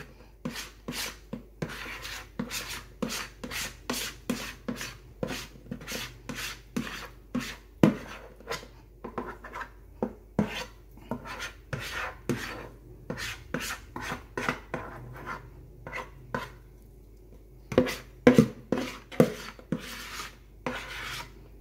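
Metal spoon scraping thick sweet potato pudding batter out of a plastic mixing bowl, in short repeated strokes about two a second. A cluster of louder taps comes near the end.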